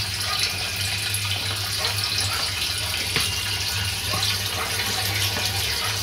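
Water pouring into a tank from the pump's inlet, a steady splashing rush with drops striking the surface, as the tank fills. A steady low hum runs underneath.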